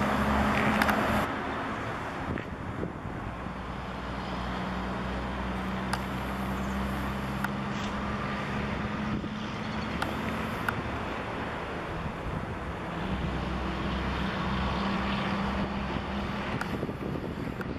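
Steady background traffic noise: a low engine hum over an even hiss, with a few faint clicks.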